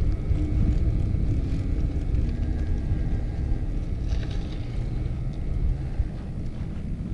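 Mountain bike tyres rolling slowly over a rough gravel road: a steady low rumble with wind noise on the camera microphone, easing a little toward the end as the bike slows.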